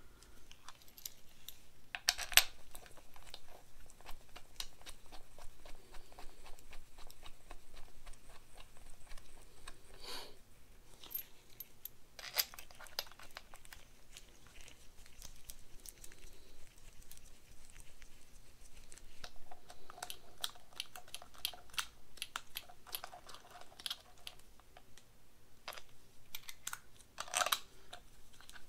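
Light clicks, taps and scrapes of a new aluminium oil pump being handled and seated against an engine block, with a few sharper knocks about 2 s in, around 12 s and near the end.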